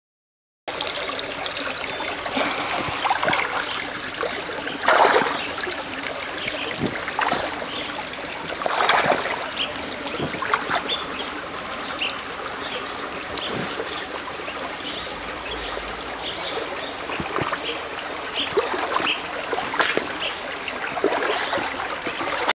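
Shallow stream trickling and gurgling over stones, with a few louder splashing gurgles now and then.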